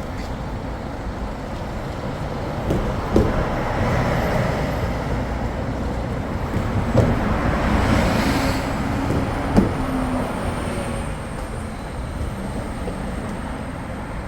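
Road traffic: vehicles running past in a steady wash of engine and tyre noise, with one vehicle swelling loudest and passing about eight seconds in. A few sharp knocks stand out about three, seven and nine and a half seconds in.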